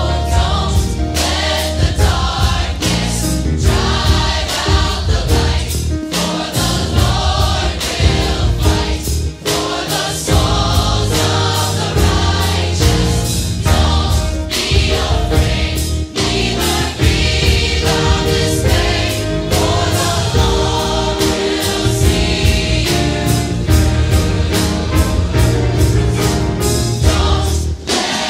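Gospel choir singing a choral anthem with instrumental accompaniment, over a strong bass line and a steady beat.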